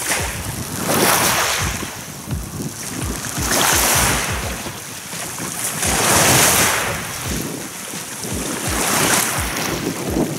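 Small lake waves washing up onto a gravel shore, swelling and fading about every two and a half seconds, with wind buffeting the microphone.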